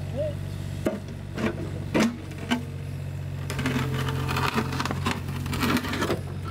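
Takeuchi mini excavator's diesel engine running steadily with its hydraulics working, the bucket knocking and scraping against earth, roots and stone as it digs out a tree stump. About halfway in the engine note strengthens under load and the clatter of the bucket gets busier.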